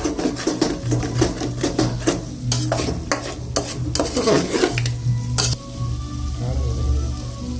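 Chicken frying and sizzling in a pan while a spatula stirs and scrapes it with rapid clicks against the pan. The stirring stops about five and a half seconds in, and music takes over.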